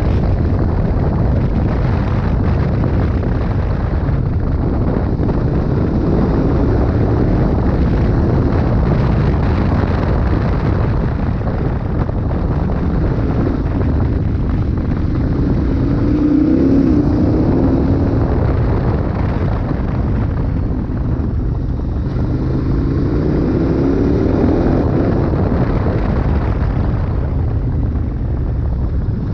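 KTM 1290 Super Adventure R's V-twin engine running on a gravel road under heavy wind noise, the bike slowing overall. The engine note swells and glides up and down twice, about halfway through and again near the end.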